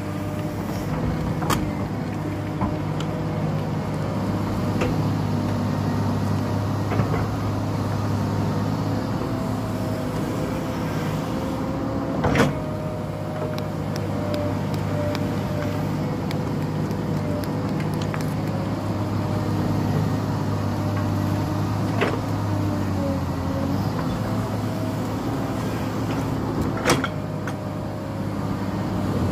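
Tracked hydraulic excavator's diesel engine running steadily under load while it digs, with a wavering whine over it. Several sharp knocks, the loudest near the middle, as the bucket strikes soil and rock.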